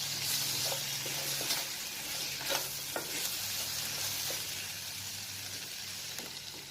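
Sliced ivy gourd frying in oil in a pan, with a steady sizzle, and a spatula scraping and clicking against the pan now and then as it is stirred.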